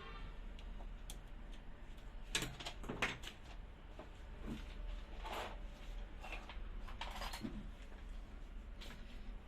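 Scattered clicks and knocks of tools and metal parts being handled on a workbench during amplifier repair, the two loudest about two and a half and three seconds in, over a steady low hum.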